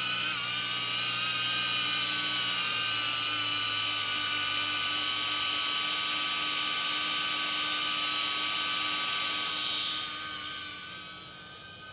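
DJI Avata FPV drone on its stock propellers hovering close by: a steady, loud, high-pitched propeller whine made of several tones, fading over the last couple of seconds as the drone moves away.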